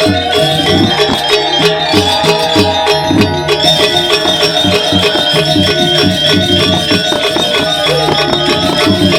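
Balinese gamelan music: struck bronze metallophones and drums playing fast, dense strokes over ringing held tones.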